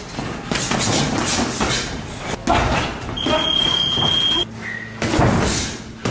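Boxing gloves thudding and slapping as punches land in sparring, with shuffling in the ring and gym noise. A steady high-pitched beep sounds for just over a second midway.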